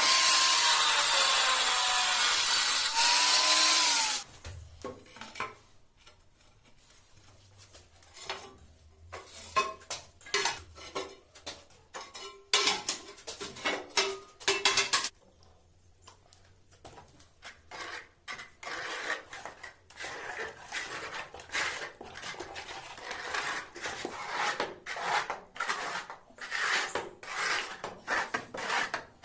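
A Bosch angle grinder cuts porcelain tile for about the first four seconds and then stops abruptly. Scattered clacks and knocks follow as tile pieces are handled. From about two-thirds of the way through, a notched steel trowel scrapes in repeated strokes, combing tile adhesive across a concrete floor.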